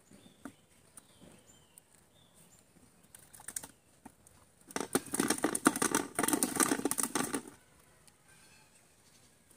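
A freshly caught small fish flapping inside a plastic bucket: a rapid rattling drum of taps for about three seconds, in two bursts, starting about halfway through.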